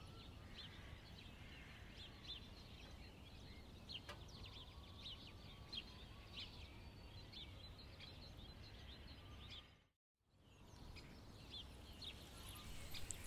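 Faint small birds chirping in quick short calls over quiet outdoor background noise, with a brief dead dropout in the sound near the end.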